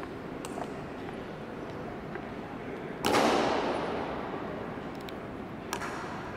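A single loud stamp on the marble floor by a ceremonial honor guard about three seconds in, ringing on with a long echo through the stone hall. Lighter clicks of the guard's boot heels on the stone come before and after it.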